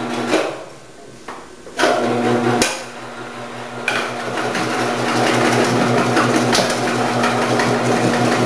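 The electric motor of an Omcan HLC 300 vegetable cutting machine starts about two seconds in and runs with a steady hum. From about four seconds in, cucumber is fed through the 8 mm disc, adding a continuous cutting clatter.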